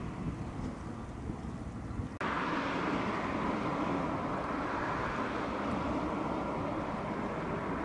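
Steady outdoor rumble and hiss of vehicle-like noise. About two seconds in it drops out for an instant, then comes back louder and hissier.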